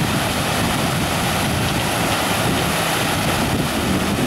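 Fast snowmelt mountain stream rushing over rocks, a loud steady wash of water.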